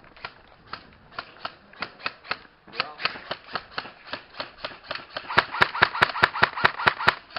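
Airsoft guns firing a string of sharp shots, a few a second at first, then faster and louder, about five a second, from about five seconds in.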